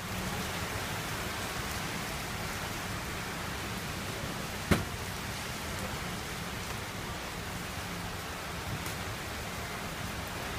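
Steady heavy rain falling on a street, with one sharp click about halfway through and a fainter one near the end.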